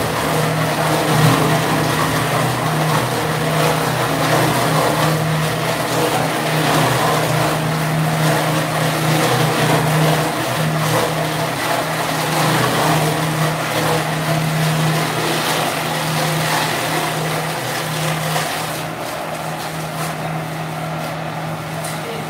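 Bakso meatball machine, a bowl cutter, running with a steady mechanical drone and a constant low hum, a little quieter in the last few seconds.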